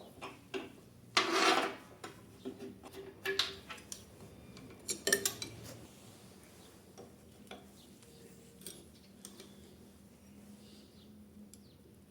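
Metal pieces clinking and clattering as they are handled, a busy run of knocks and clinks in the first half and only faint taps later.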